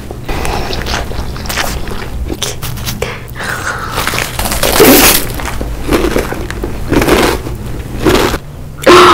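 Close-miked crunching and chewing of a black Doritos tortilla chip: a run of crisp, irregular cracks.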